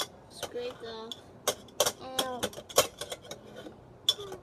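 Metal spoon clinking and scraping against a stainless steel hand citrus juicer, a string of sharp irregular clinks. A child's voice makes a few short wordless sounds in between.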